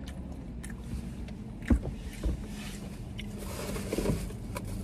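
Steady low rumble inside a stationary car, with a few knocks and some rustling from handling a takeout fries container.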